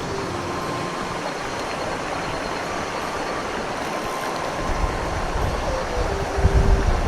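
Steady rushing of a mountain stream, with a low rumble of wind on the microphone coming in about two-thirds of the way through.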